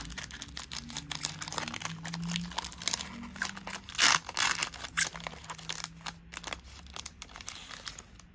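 Wrapper of a Betrayers of Kamigawa booster pack crinkling as it is handled and torn open by hand, with the loudest rip about four seconds in.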